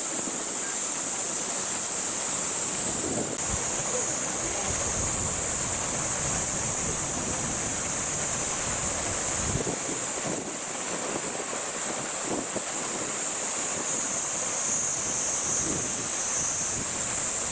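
Steady, high-pitched buzzing of a cicada chorus in summer, with gusts of wind rumbling on the microphone.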